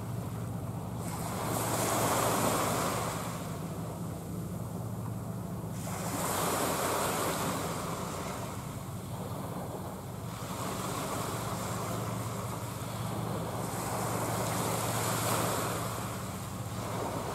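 Small waves washing in slow swells that rise and fall every few seconds, with wind on the microphone, over a steady low drone of distant tug and ship engines.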